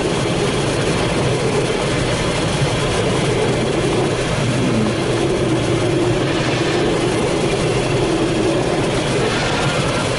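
Steady rush of air streaming around the canopy, heard inside the cockpit of a Grob Astir glider in flight.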